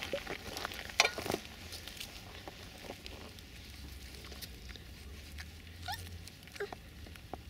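Puppies rustling and pattering through grass and dry weeds, with a few sharp clicks in the first second and a half. A couple of brief high puppy squeaks come near the end.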